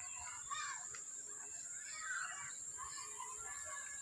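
Outdoor garden ambience: small birds chirping and calling in short, scattered notes over a steady high-pitched insect drone.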